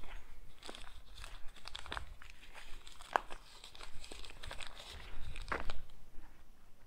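Footsteps crunching over loose debris: irregular crackling and crunching underfoot, with sharper cracks about three seconds in and again past the halfway point.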